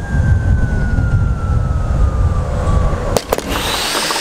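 Zip line trolley running down a steel cable: a thin whine that slowly falls in pitch as it slows, over heavy wind rumble on the microphone. A little over three seconds in come a few sharp clacks as it reaches the platform, and the rumble drops away, leaving a hiss.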